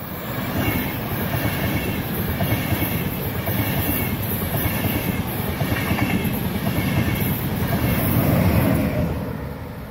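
ÖBB railjet passing at speed, driving trailer first and pushed by a class 1116 Taurus electric locomotive: a loud rush of wheels on rails with a rhythmic clatter. It is loudest about eight seconds in, as the locomotive goes by, then drops away quickly.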